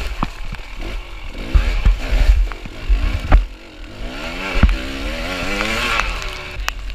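Dirt bike engine revving up and down while riding a muddy trail, with a long climbing rev near the end. Heavy low thumps from the bike hitting the terrain come several times.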